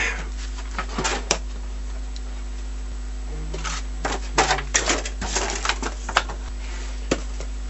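Packaging being handled during unboxing: scattered clicks and knocks, with a busier stretch of crinkling and rustling in the middle, over a steady low hum.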